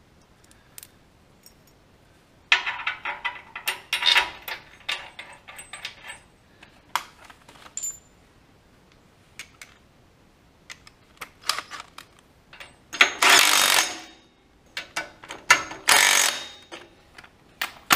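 Clinks and rattles of steel bolts, nuts and a socket being handled and fitted. Near the end comes a cordless drill with a socket extension spinning a bolt into the tractor's axle casting in two short runs.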